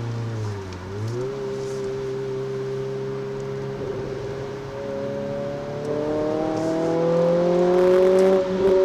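Renault Clio RS 200's 2.0-litre four-cylinder engine heard from inside the cabin, its pitch dipping briefly about half a second in, then holding steady before rising and getting louder under acceleration over the second half, with a short dip near the end.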